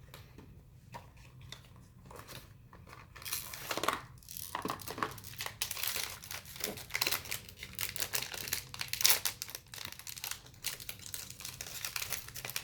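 Blind-box toy packaging being torn open and crinkled by hand. A few light clicks at first, then about three seconds in, dense crinkling and tearing that goes on to the end.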